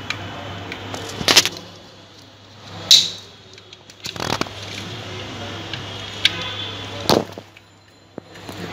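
Sharp clicks and clatters of a screwdriver and a plastic socket plate being handled while wires are freed from the socket's terminals, about five knocks in all, the loudest about three seconds in, over a steady low hum.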